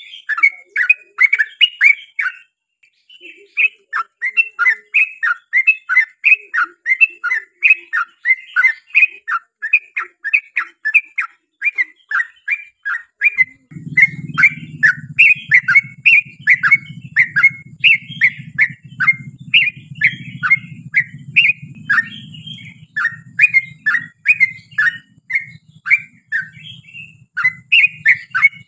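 Yellow-vented bulbul (trucukan) singing a long, fast run of bubbly chirped notes, three or four a second, pausing briefly near the start. A low hum joins about halfway through.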